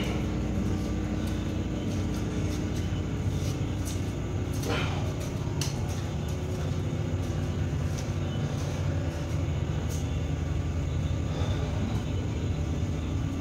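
A vehicle running steadily: a continuous low hum with a few faint clicks over it.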